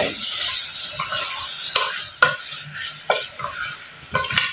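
Wooden spatula stirring spice-coated chicken pieces in an aluminium pressure cooker, with several sharp knocks and scrapes against the metal pot over a steady sizzling hiss.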